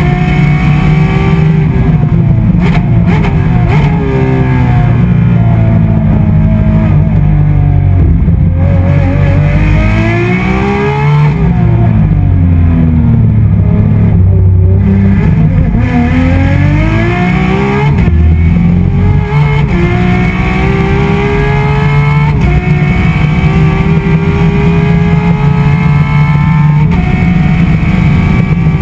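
Ferrari 599XX Evo's V12 racing engine heard from inside the cockpit, lapping at full pace: loud, its pitch repeatedly climbing under acceleration and dropping through downshifts into the corners, with one long drop and climb about halfway through.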